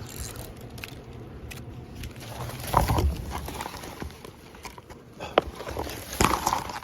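Footsteps and rustling through brush as someone picks their way along a riverbank: irregular thuds and crunches, loudest about three seconds in and again near the end.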